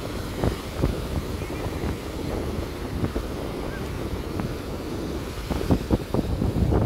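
Wind buffeting the microphone in a steady low rumble with scattered short pops, over the wash of surf breaking on a beach.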